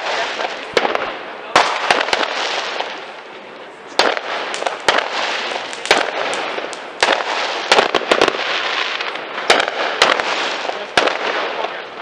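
Fireworks and firecrackers going off all around: frequent sharp bangs, some in quick clusters, over a dense, continuous crackle of more distant ones, with a brief lull about three seconds in.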